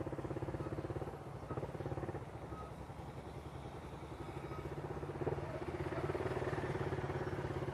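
Motorcycle engine running steadily at low revs, an even fast putter that grows slightly louder in the second half.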